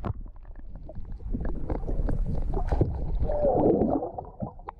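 Water gurgling and sloshing around an action camera held under water, heard muffled and low, with a louder bubbling gurgle about three and a half seconds in.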